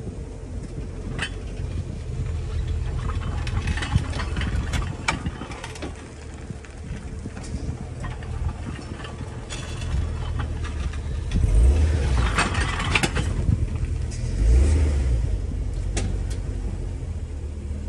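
Tow truck engine running as its wheel-lift arm is moved under the front of a wrecked car, with a few sharp metallic knocks and two louder surges of engine noise later on.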